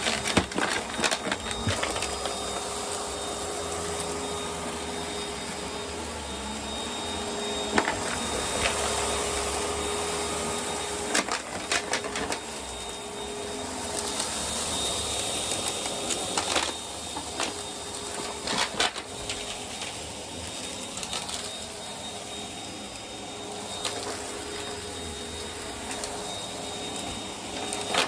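Vacuum cleaner running steadily on carpet with a steady hum and a high whine, its passes broken by bursts of crackling and clicking as grit and dirt are sucked up.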